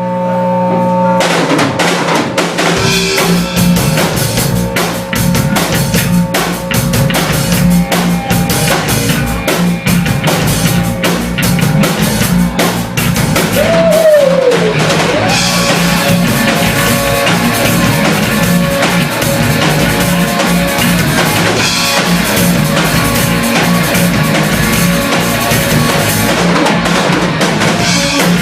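Loud rock music: a drum kit comes in about a second in and keeps a dense, driving beat over held bass and sustained tones, with one note bending down about halfway through.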